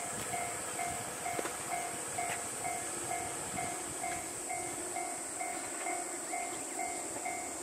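Railway level-crossing warning bell ringing steadily, about two strokes a second, the signal that a train is approaching. A steady high hiss runs underneath.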